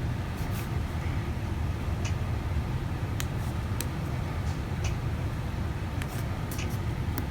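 Scattered light clicks and taps of phones being handled and set down, over a steady low rumble.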